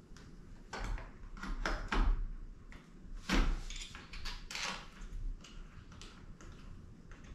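Hard plastic clicks, knocks and scrapes as a 4K camera module is fitted onto the camera mount of a SwellPro Splash Drone 3+. There are a string of short, sharp handling sounds, and the loudest comes about three and a half seconds in.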